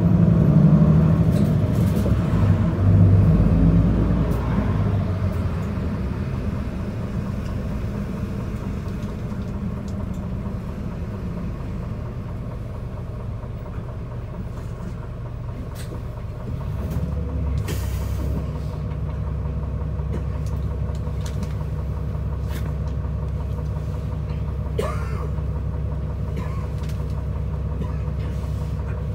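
Isuzu Erga city bus heard from inside the passenger cabin: engine and road rumble die down as the bus slows to a stop, then the engine idles. About sixteen seconds in, a steadier, slightly louder low engine hum sets in.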